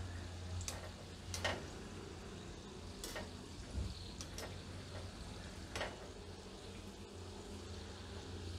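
Ghughra deep-frying in ghee over a low flame: a soft, steady sizzle. A wire skimmer turns them, with a handful of sharp clicks.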